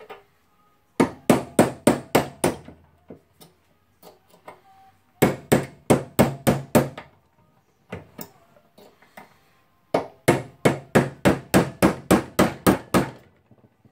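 Hammer striking a punch in three quick runs of blows, about four a second, driving a stuck part out of a Makita HR2470 rotary hammer. The part is not coming out easily.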